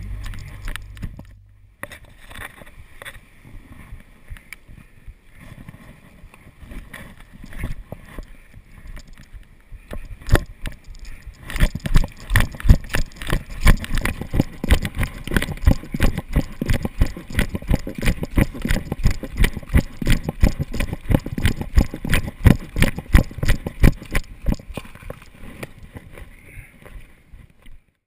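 A trail runner's footfalls, a steady rhythm of about three strikes a second, loudest from about eleven seconds in and easing off near the end, over a hiss of wind or movement noise.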